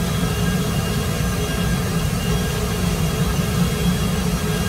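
Steady roar of power-plant machinery: a low rumble with a few faint steady tones running above it.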